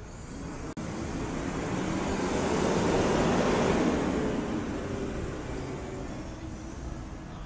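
A vehicle passing by, its noise swelling to a peak about three to four seconds in and then fading away.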